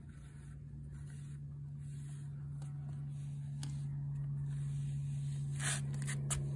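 A steady low motor hum at one unchanging pitch, slowly getting louder, with a few short scratchy sounds near the end.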